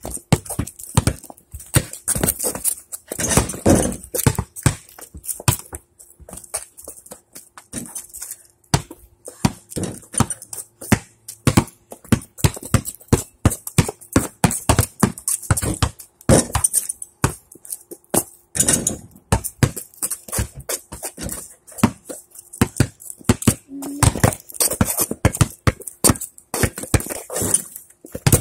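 A basketball bouncing on a concrete driveway: many irregular sharp thumps.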